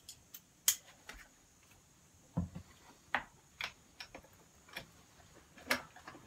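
Irregular metallic clicks and clinks of a hand wrench on the wheel hub fasteners of a 1953 Gravely Model L walk-behind tractor, as the wheel is being taken off. There is a dull knock about two and a half seconds in.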